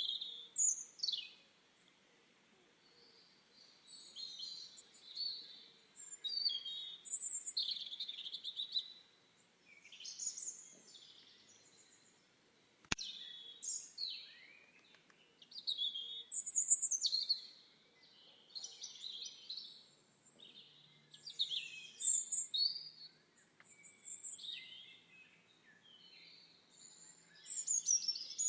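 Songbirds singing: a long run of short, high-pitched chirping phrases that glide in pitch, coming every second or so with brief pauses between them.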